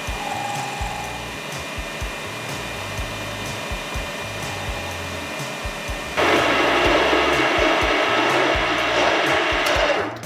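Metal lathe running with its chuck spinning a pushrod. About six seconds in, a louder rough cutting noise starts as the tool bit faces off the end of the pushrod tube. It stops just before the end as the lathe comes to rest.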